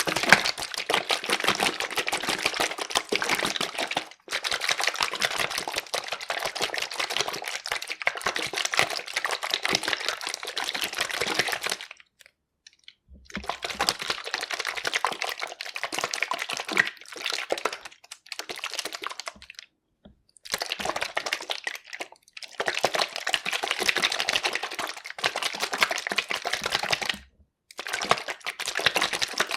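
Plastic bottle of yoghurt shaken hard by hand, a dense, fast run of strokes in several long bouts with short pauses about 4, 12, 20 and 27 seconds in.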